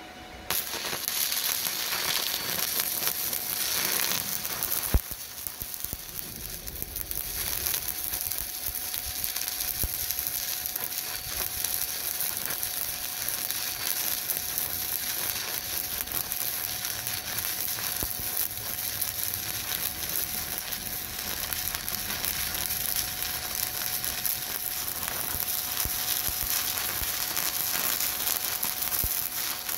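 Stick-welding arc burning a 7018 electrode, with the steady crackling sizzle of a running bead that strikes up about half a second in. One sharp pop stands out about five seconds in.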